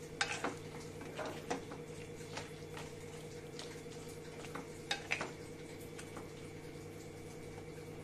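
Spatula stirring and scraping chopped onions, tomatoes, cashews and dried red chillies in a little water in a stainless steel kadhai, with a few light knocks against the pan in the first couple of seconds and again around five seconds in. A steady low hum runs underneath.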